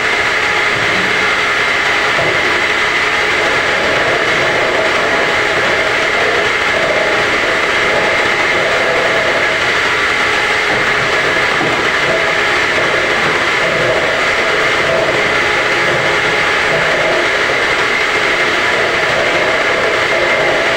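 A homemade semi-automatic round-gallon washing machine running with a steady, loud mechanical noise that never lets up.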